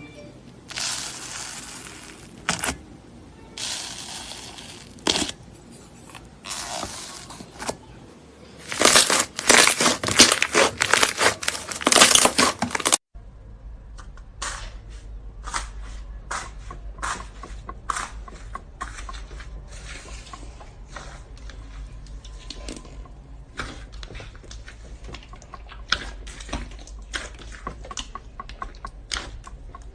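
Slime being squeezed and pressed by hand, giving bursts of crackling and popping, loudest and densest about nine to twelve seconds in. After a cut about thirteen seconds in, a steadier run of small clicks and pops over a low hum.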